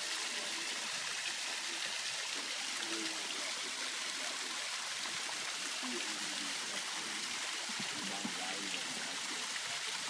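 Water falling steadily over a decorative concrete rock waterfall and splashing into its pond: a constant rushing and trickling.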